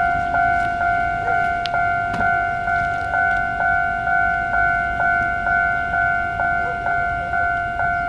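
Railway level crossing warning bell sounding: a pitched electronic ding struck evenly a little over twice a second, each stroke ringing on and fading before the next.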